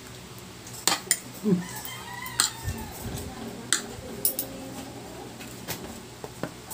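Metal spoon and fork clinking and scraping against a plate while eating, in a handful of sharp, irregularly spaced clinks.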